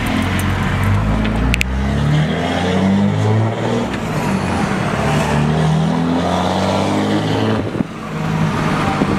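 2005 Dodge Ram 3500's 5.9-litre Cummins inline-six turbo diesel, heard from inside the cab, pulling away through the gears of a manual gearbox. The engine note climbs, falls at a shift about four seconds in, climbs again and falls near the end. The turbo has its silencer ring removed.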